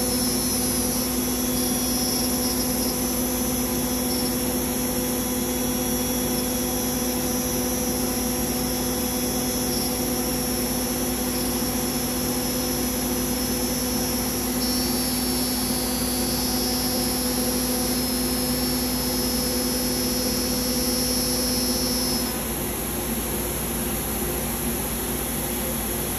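CNC router spindle whining steadily while it cuts through plastic sheet, with the dust-extraction vacuum rushing along with it. About 22 seconds in, a lower hum drops out and the noise gets slightly quieter.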